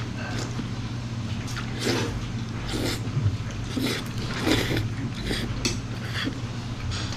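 Jjajangmyeon noodles being slurped and chewed up close, a string of short wet slurps about once a second over a steady low hum.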